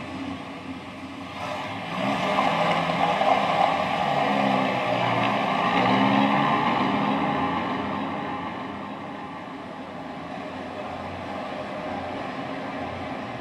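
Engine of a heavy armoured military vehicle driving by, swelling about two seconds in, loudest around six seconds, then easing to a lower steady running sound.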